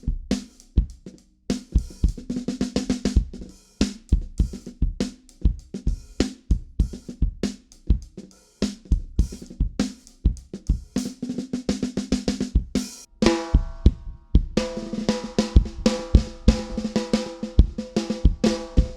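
Drum kit played in a steady groove: snare, bass drum and hi-hat hits, the snare dampened with foam and masking tape to cut its ringing overtones. About two-thirds in, a sustained ringing tone joins the hits.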